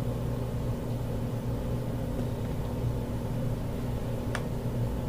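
Steady low hum of room tone, with a single short click about four seconds in.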